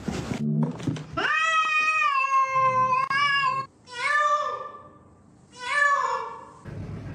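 A cat meowing three times: one long, drawn-out meow lasting about two and a half seconds, then two shorter meows that fall in pitch.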